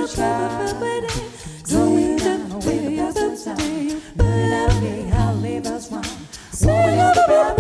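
Six-voice a cappella pop group singing in harmony, with a low sung bass line and mouth-made percussion keeping the beat.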